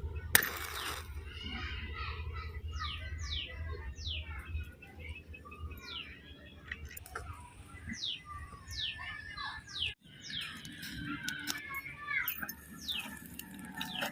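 Small birds calling: a scattered series of short, high chirps that each drop quickly in pitch. There is one sharp click about half a second in.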